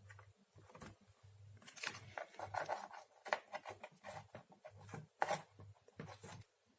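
Faint, irregular clicks and rubbing of hands handling speaker cables and plugs while they are being connected.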